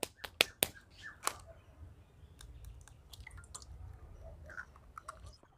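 Raw eggs being cracked on a stainless-steel bowl and emptied into it: a few sharp taps of shell against metal in the first second and a half, then faint soft handling sounds.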